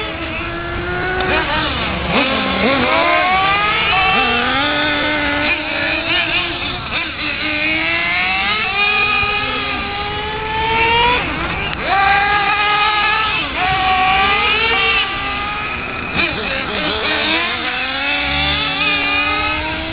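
Remote-controlled model cars' motors revving, their buzzing pitch repeatedly climbing and falling as the cars speed up and slow down, with more than one car's pitch overlapping at times.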